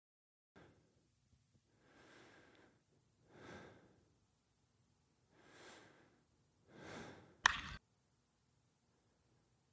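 Four faint, slow breaths a second or two apart, each swelling and fading. Just after the last one comes a short, sharp burst, the loudest sound, that cuts off abruptly.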